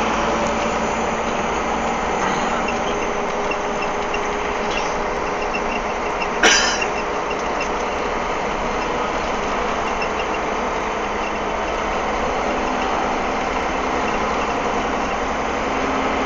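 Steady engine drone and road noise heard inside a moving truck's cab, with a single brief knock about six and a half seconds in.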